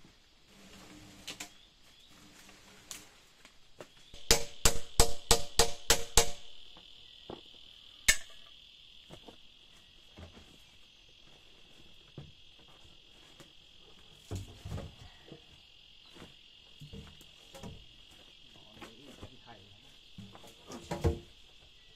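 Insects in the forest chirring in a steady high-pitched drone that sets in about four seconds in and continues. Over it, a quick run of about ten sharp, ringing knocks, some five a second, comes about four seconds in, then a single knock near eight seconds, and a few duller thuds later on.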